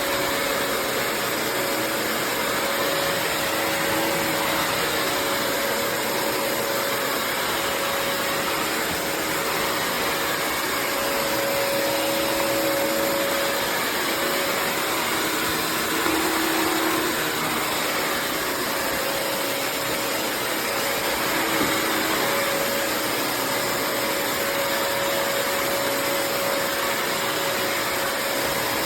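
Bissell CrossWave HydroSteam Pet wet-dry vacuum running steadily as it cleans a floor of dirt and dog fur: a constant rushing hiss with a steady motor whine.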